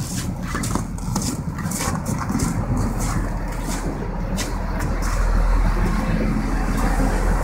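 Scallop boat's engine running with a low rumble as the hull breaks through sea ice. There are repeated crackling and splashing bursts for the first few seconds, and the engine rumble grows louder and steadier about five seconds in.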